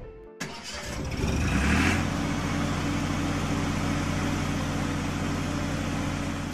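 Cartoon truck engine sound effect: it starts up and revs for about a second and a half, then runs at a steady drone while the truck drives along.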